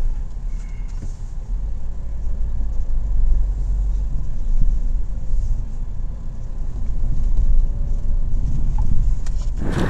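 Lada Vesta driving, heard from inside the cabin: a steady low rumble of engine and road. Near the end a sudden, louder noise takes over.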